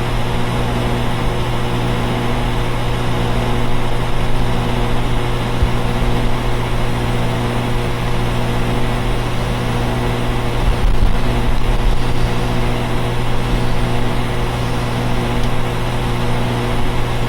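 Outdoor central air conditioner units running: a loud, steady hum with a few steady low tones over an even rushing noise.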